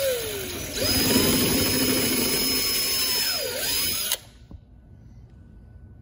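Power drill with a 1/4-inch bit boring out a stripped screw hole in a plastic blower housing, enlarging it so the Helicoil tap can pass through. The motor whines up to speed, runs steadily for about three seconds, dips in pitch briefly, then cuts off suddenly about four seconds in.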